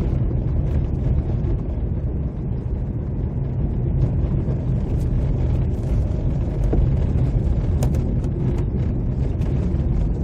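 Steady low rumble of a car driving, heard from inside the cabin: tyre and engine noise, with a few faint ticks.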